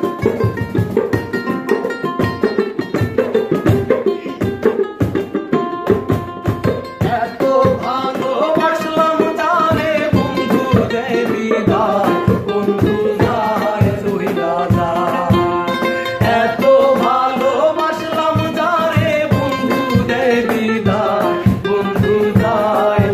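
Ukulele strummed with a steady hand-percussion beat, then a group of men start singing a Bangla folk song over it about seven seconds in.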